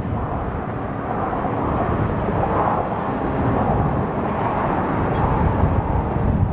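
Distant double-stack container freight train rolling along curving track, a steady rumble of wheels on rail.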